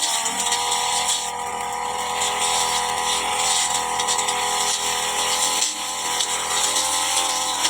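Brush cutter's small petrol engine running at high revs. Its pitch drops slightly right at the start, then holds steady.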